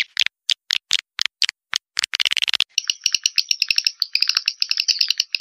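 Recorded swiftlet call, the lure sound played to draw swiftlets into a nesting house. It starts as sharp, evenly spaced chirps about four a second, then turns into a fast, high chattering twitter about three seconds in.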